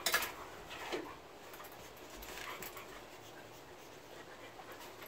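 A dog whimpers briefly about a second in, after a short sharp noise at the start.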